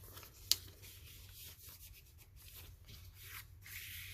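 Soft rustling and rubbing of paper ephemera being handled, with one sharp tick about half a second in.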